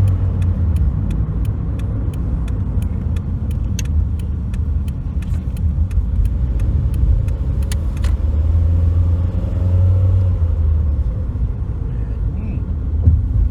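Steady road and engine rumble from the 2007 Toyota Corolla in motion, with a run of evenly spaced light ticks that stop about eight seconds in. No knocking or clunking from the steering is heard.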